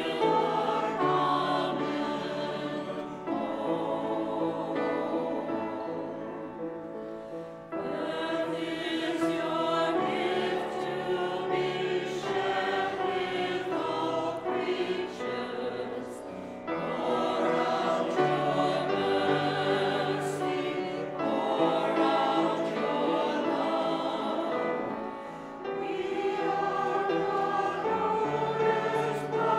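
Mixed church choir of men and women singing a hymn in harmony, accompanied on piano, in long phrases with brief pauses between them.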